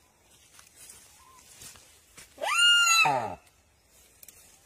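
A deer, still alive under a feeding Komodo dragon, gives one loud distress bleat about two and a half seconds in. The cry starts high, breaks, and slides down to a low groan over about a second.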